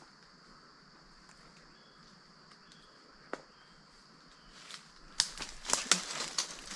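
Footsteps crunching through dry leaf litter and pushing through undergrowth, with sharp twig snaps, starting about five seconds in. Before that there is a quiet stretch with a steady high-pitched drone and one lone snap.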